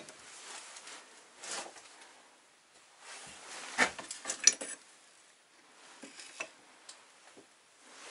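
Small hard objects being handled and set down: scattered clinks and knocks, the loudest pair about halfway through, with quieter ones before and after.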